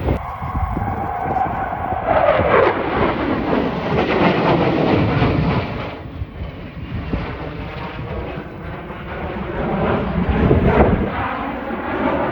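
Military aircraft flying past, loud, its engine note falling in pitch as it goes by about two seconds in; the sound changes abruptly about six seconds in to a steadier, lower engine noise.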